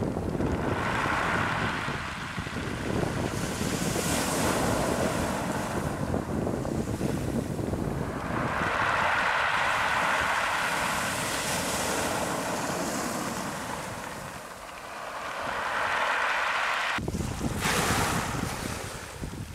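Surf breaking on a shingle beach of rounded pebbles, swelling and easing as each wave comes in and washes back over the stones. The sound changes abruptly about three seconds before the end.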